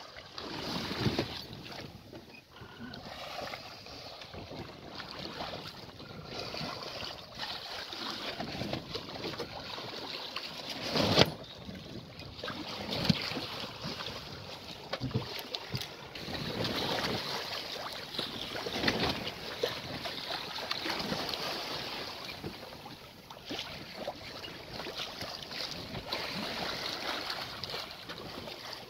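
Water rushing and splashing along a small sailing yacht's hull as it moves through a light sea, with wind buffeting the microphone; the sound swells and fades every few seconds. There is one sharp knock about eleven seconds in.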